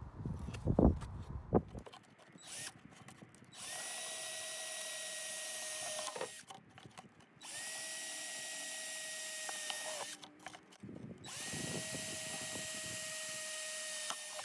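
Red Milwaukee cordless drill drilling drainage holes in the bottom of a clear plastic water jug. It runs in three steady bursts of about two and a half to three seconds each, with its pitch rising as the trigger is pulled and dropping as it is released. In the first two seconds, before the drilling, there are a few loud knocks as the plastic jug is handled.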